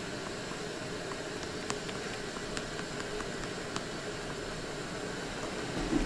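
Steady fan noise, with a handful of faint, short clicks in the first few seconds as the projector's focus is adjusted.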